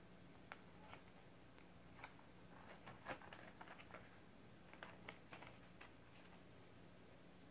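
Near silence with faint scattered clicks and crinkles, about a dozen, from a plastic garbage-bag kite and its thin sticks being handled, over a faint steady hum.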